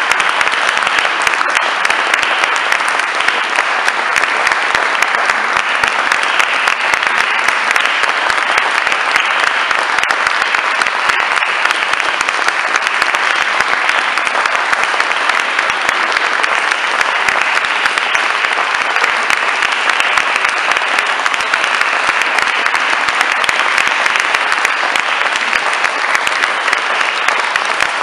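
Audience applauding: dense, sustained clapping that holds steady throughout.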